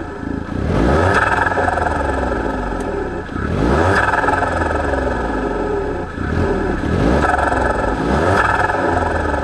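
Smart ForTwo's 1.0-litre turbocharged three-cylinder engine revved four times, each quick rise in revs sinking slowly back down, heard close at the car's engine air vents.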